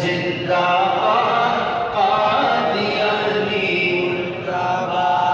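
Male voice chanting a Pashto naat, drawing out long melodic notes that glide between pitches without a pause.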